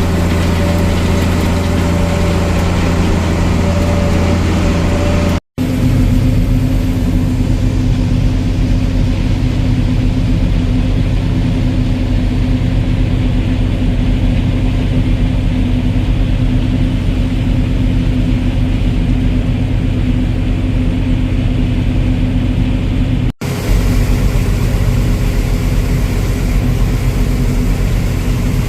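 Heavy farm vehicle engine running at a steady speed, a continuous low droning hum. The sound drops out for an instant twice, about five seconds in and about five seconds before the end, and the hum's pitch shifts slightly after the first drop-out.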